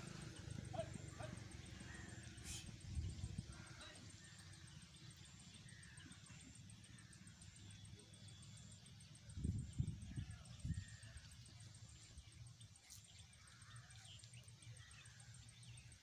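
Quiet outdoor ambience with faint scattered chirps and a low rumble, broken by a few low thumps around three seconds in and again around ten seconds in.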